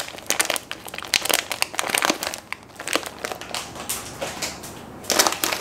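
Plastic chocolate-chip packet crinkling and crackling in irregular bursts as hands struggle to get it open, loudest again near the end.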